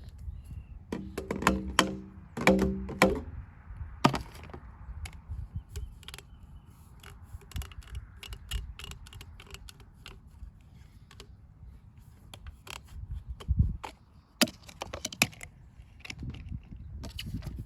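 Scattered clicks, taps and knocks of plastic pipe and fittings being handled, with a few louder hollow knocks between about one and three seconds in.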